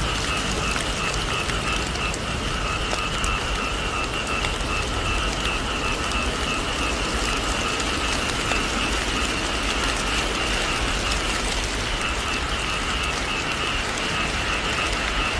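Steady rain falling and dripping off the edge of a thatched roof, with a faint steady high-pitched tone running underneath.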